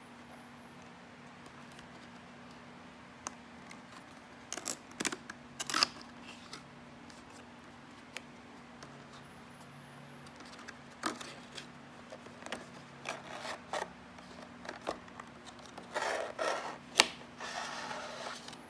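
Cardboard packaging being opened by hand: scattered clicks and rustles as the box's end flap and tab are lifted, then a rubbing scrape with a sharp click near the end as the inner tray slides out of its cardboard sleeve. A faint steady hum runs underneath.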